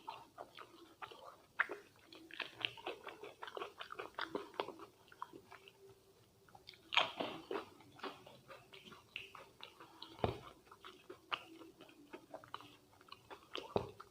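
A person chewing food close to the microphone: steady, irregular wet clicks and smacks of the mouth, with a louder bite about seven seconds in.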